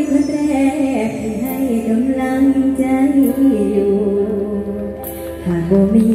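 A girl singing a mor lam song into a microphone through the stage PA, in long held notes that glide from pitch to pitch.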